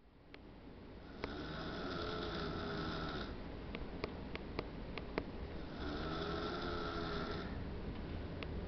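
Snoring: two long, drawn-out snores about four and a half seconds apart, with a few short sharp clicks between them.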